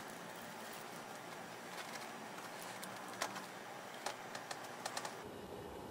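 Light clicks and knocks from a wooden sand-casting flask and its plastic strap being handled and tipped up, over a steady hiss; the sharpest click comes about three seconds in, with a few more in a quick cluster near the end.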